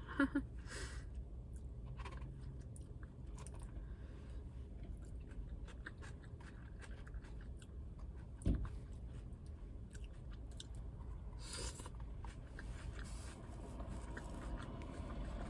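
A person chewing a mouthful of lettuce salad close to the microphone, with soft crunching and small mouth clicks. A single knock sounds a little past halfway through.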